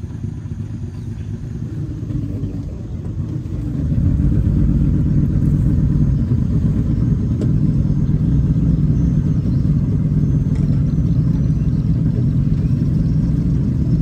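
River speedboat's engines running low, then opened up to full throttle about four seconds in and held there as a loud, steady rumble while the boat gets under way.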